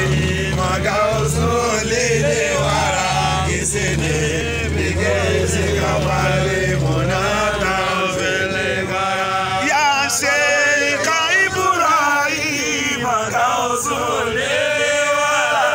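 Men's voices chanting together in a rhythmic praise chant. A low steady hum runs underneath and stops about eight seconds in.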